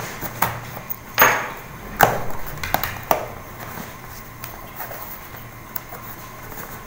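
Cardboard shipping box handled and turned over on a wooden floor: several knocks and scrapes in the first three seconds, the loudest a little over a second in, then only light taps and rubbing as hands press on the box.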